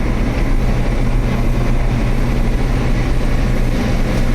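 Combine harvester running steadily while cutting wheat: a loud, constant low drone of engine and machinery.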